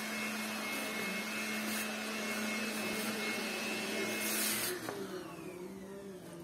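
An electric motor-driven machine runs with rushing air and a steady whine. About four and a half seconds in it is switched off, and the whine falls in pitch as the motor spins down.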